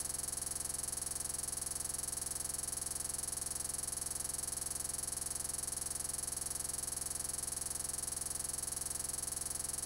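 Steady, unchanging electronic hiss and buzz with no events in it: digital noise from a corrupted camera recording that has stuck on one frame.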